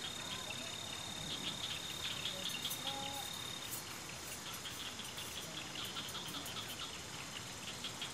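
Crickets chirping at night in rapid, repeating high pulses, with one steady high trill that stops about three and a half seconds in.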